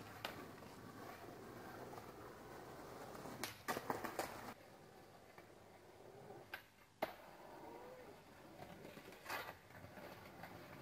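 Skateboard clacking and knocking on concrete pavement: a quick cluster of hits about three and a half seconds in, a single sharp pop near seven seconds and another knock near nine, over faint background hiss.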